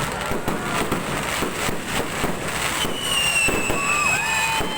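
Fireworks going off in quick, irregular bangs and crackles. From about three seconds in, a long high whistle falls slowly in pitch over them.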